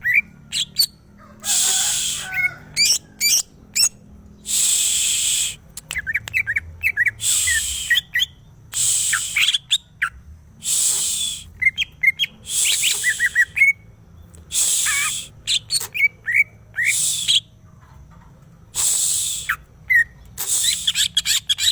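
Greater green leafbird singing. Quick whistled chirps and slurred notes alternate with harsh, raspy notes that come about every two seconds.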